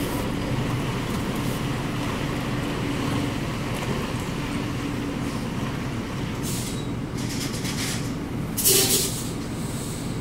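Heavy truck's diesel engine running steadily at low speed. A few short hisses come in after about six seconds, the loudest about nine seconds in, typical of the truck's air brakes.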